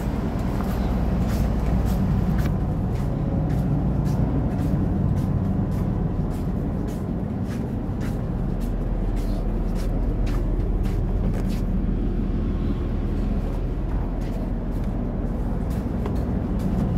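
Steady low drone inside a stationary JR HC85 series hybrid diesel railcar, with scattered faint clicks throughout.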